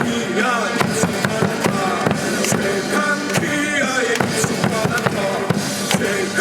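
Baseball cheer song played over stadium loudspeakers, with a singing voice over a steady drum beat and sharp claps.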